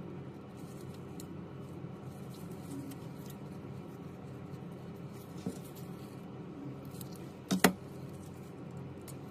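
Gloved hands handling an iPhone 11 Pro Max replacement battery and peeling plastic liner film off its adhesive strips: soft rustling and crinkling with small scattered clicks, and two sharp clicks close together about seven and a half seconds in. A steady low hum runs underneath.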